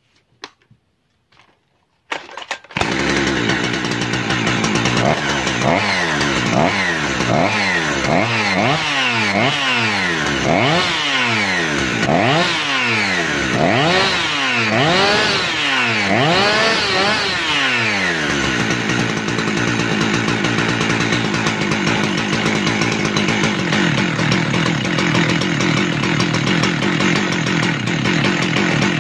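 Husqvarna 372XP two-stroke chainsaw engine starting about three seconds in, then revved up and down about once a second for some fifteen seconds, the throttle springing back each time under a rubber band that stands in for the broken throttle return spring. It then settles into a steady run.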